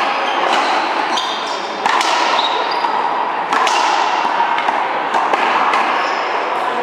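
Racquetball rally: the rubber ball is struck by racquets and smacks off the wall and floor, several sharp hits about a second or two apart, each echoing in a large hall.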